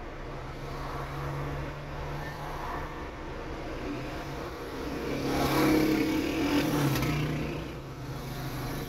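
Road traffic heard from a car standing in a traffic queue: a steady low engine hum, with a vehicle passing close by that swells louder from about five seconds in and fades a couple of seconds later.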